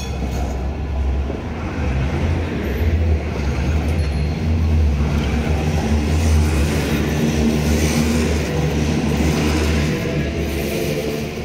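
Cologne Stadtbahn B-type light-rail car passing close by on curved track: a steady low rumble of the wheels and running gear with a held motor hum.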